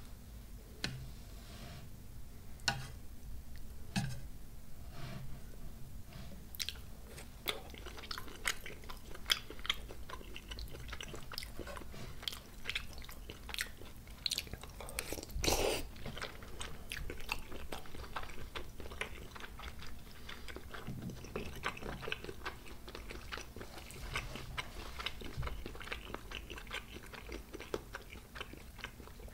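Close-miked chewing of sauce-soaked cabbage from spicy tteokbokki: a steady run of small wet, clicky mouth sounds, with one louder bite about halfway through.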